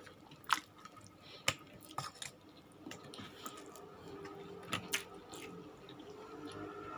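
Close-up eating sounds: chewing and wet mouth noises, with a few sharp clicks and smacks.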